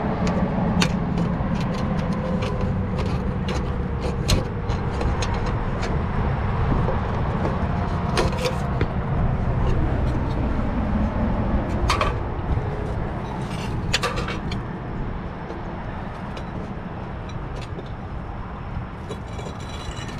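Steady low outdoor rumble with scattered sharp clicks and taps of hand work on materials, a louder knock about four seconds in; the clicks thin out and the sound quietens after about fifteen seconds.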